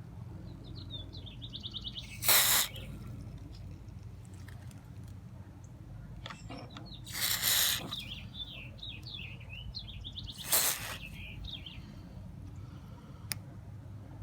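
Three short hisses from an aerosol can of white lithium grease sprayed onto a car door latch, about two, seven and ten seconds in. Birds chirp between the sprays.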